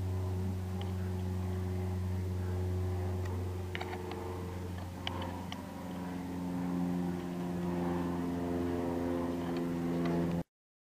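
A steady low machine hum runs throughout, with a few faint light clicks as a plastic pry tool works at the laptop's coin-cell CMOS battery. The sound cuts off abruptly near the end.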